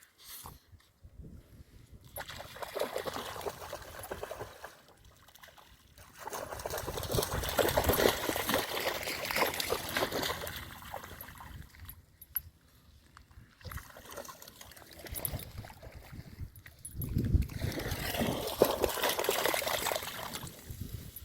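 Water splashing and trickling in three long bursts of several seconds each, with quieter gaps between.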